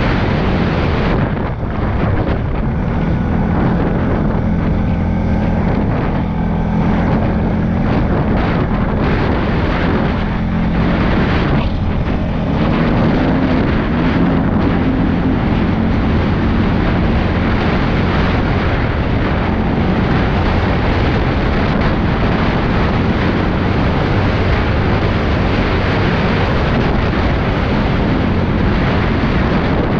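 CFMOTO CForce 625 ATV's single-cylinder engine running hard under way, its note climbing about halfway through, with wind buffeting the helmet-mounted microphone.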